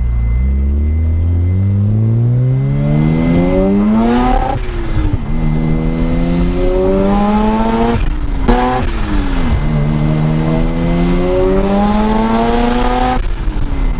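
Mazda RX-7 FD's 13B rotary engine accelerating hard through the gears, heard from inside the cabin. The revs climb in three long pulls, each cut off by a brief break for an upshift, about four and a half seconds in, about eight and a half seconds in, and near the end.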